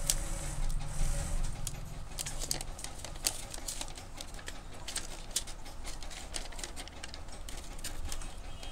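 Thin plastic packaging crinkling and crackling in the hands as a new smartphone is unwrapped from its frosted plastic sleeve, with many small sharp crackles throughout.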